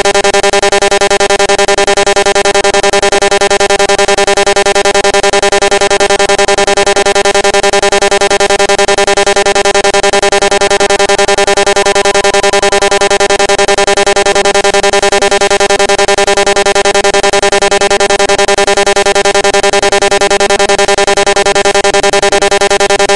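A loud synthesizer drone held on one pitch without change, buzzy with many overtones and a rapid pulsing.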